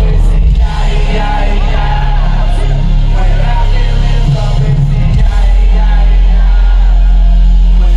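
Loud live concert music through festival speakers: a heavy, booming bass beat under rapped or shouted vocals, heavily distorted in a phone recording.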